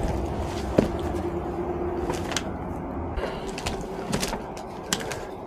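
Footsteps crunching over gravel and broken old boards, with scattered sharp knocks and scrapes of wood underfoot.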